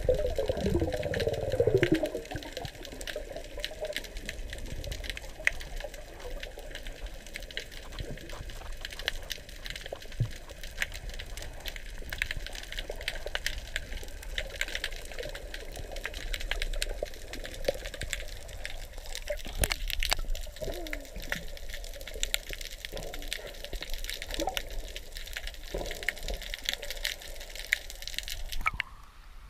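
Underwater ambience picked up by a submerged camera: a constant crackle of fine clicks over a low rush of water. It is louder and gurgling in the first two seconds, and drops away suddenly near the end.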